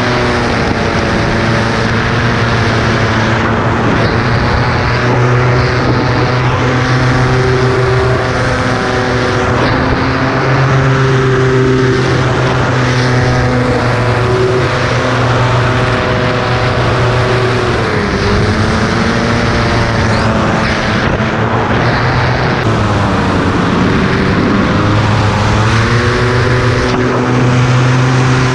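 Polini Thor 250 single-cylinder two-stroke paramotor engine running steadily at high throttle, heard close up from the pilot's seat with propeller and wind noise. Its pitch dips and climbs back twice in the second half as the throttle changes.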